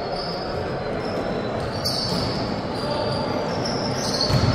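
Indoor basketball game: the ball bouncing and players' shoes squeaking on the court, echoing in a large hall, with a heavier thud about four seconds in.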